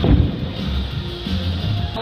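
Background music with a steady beat, and one loud thump right at the start.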